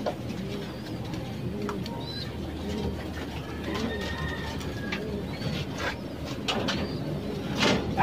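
Racing pigeons cooing over and over, a low rising-and-falling coo repeating about once a second, with scattered small clicks. A brief, louder noise comes near the end.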